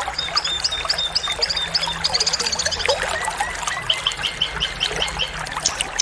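Small songbirds singing: a run of short, high, sharp chirps, a quick high trill about two seconds in, then another run of about eight evenly spaced chirps, over a steady rush of flowing water.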